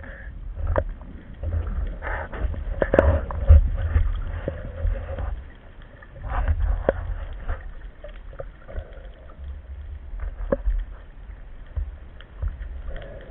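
Underwater sound picked up by a camera in its housing during a breath-hold dive: an uneven, muffled low rush of water movement with scattered sharp clicks and knocks.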